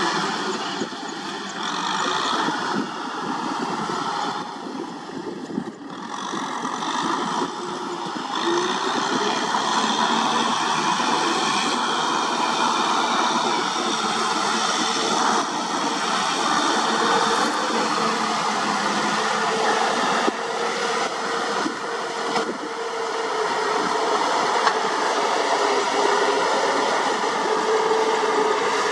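Kubota M6040SU tractor's diesel engine running steadily under load as it pulls a rotary tiller through wet paddy mud.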